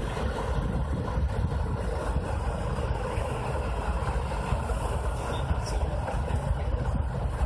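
Ponsse Buffalo forwarder's diesel engine running steadily, a low rumble.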